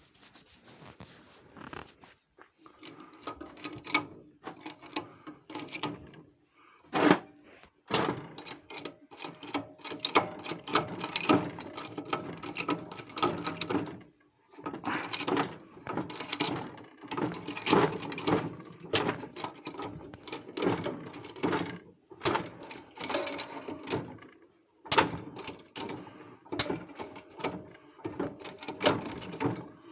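Irregular clicking, knocking and rattling of metal parts and tools being handled. It comes in busy bursts broken by brief pauses, with one sharp knock about seven seconds in.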